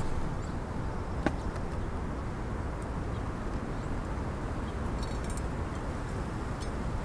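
Strong wind blowing over the microphone, a steady low rumble and rush, with one sharp click about a second in.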